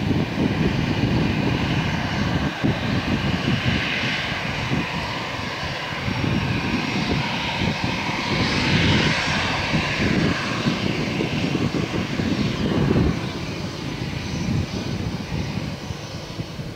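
Twin jet engines of an Airbus A320-family airliner at high power as it rolls down the runway, a heavy, rough rumble with a hiss on top that eases a little near the end.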